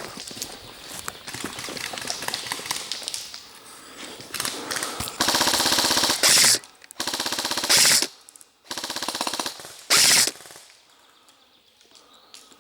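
Airsoft gun firing three bursts of rapid automatic fire, each burst ending in a brief louder stretch. Before the bursts there are about four seconds of light clicking and rustling.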